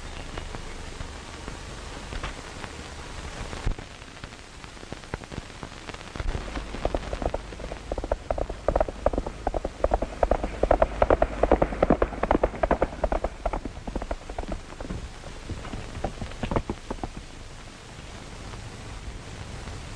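A rapid, irregular clatter of sharp clicks over a steady hiss. It swells from about six seconds in, is loudest around eleven to thirteen seconds, and fades out by about seventeen seconds.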